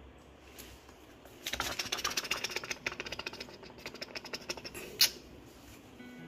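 Crackling and rustling of a hand stroking a long-haired cat's fur close to the microphone, starting about a second and a half in, then one sharp click at about five seconds.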